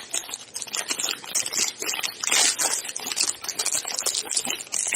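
Trading card pack wrapper being handled and torn open, a dense run of irregular crinkling and crackling, with cards shuffled in the hands.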